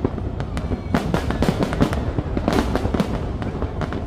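Fireworks going off in rapid succession: many sharp bangs and crackles over a steady low rumble, with dense clusters of bursts about a second in and again past halfway.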